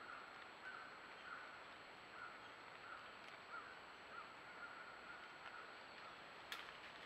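Faint bird calls: a steady string of short, repeated notes, about two a second, over the hiss of the trail camera's microphone, with a single sharp click about six and a half seconds in.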